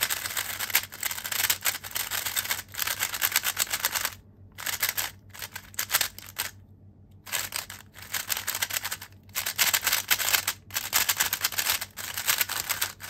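A brand-new GAN 12 Maglev 3x3 speedcube being turned fast for the first time: rapid clicking of its layers in runs of quick turns, broken by a few short pauses.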